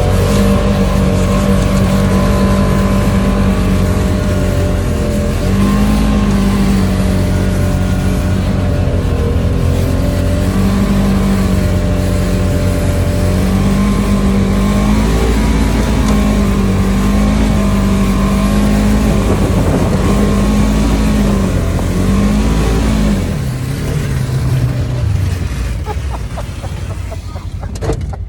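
Engine of a Polaris vehicle running under steady throttle, its pitch rising and falling a little as it pulls along. About 23 seconds in the throttle comes off and the engine note falls away as the machine slows.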